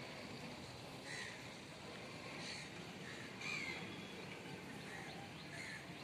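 Birds calling: about four short calls spread a second or two apart, over a steady background hiss.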